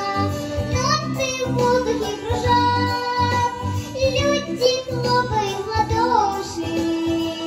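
A young girl singing a children's song into a microphone, with held notes that slide in pitch, over instrumental accompaniment with a steady bass line.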